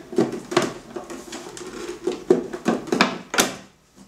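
Plastic housing of a Dometic CoolPower RAPS44 power pack being handled and pressed on. A run of irregular knocks and clacks stops about three and a half seconds in.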